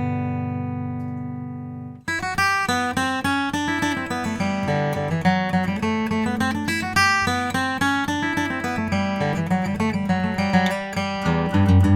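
Gibson Banner J-45 reissue acoustic guitar (red spruce top, mahogany back and sides) being played. A strummed chord rings and fades until it cuts off abruptly about two seconds in, then a quick run of picked single notes and chords follows.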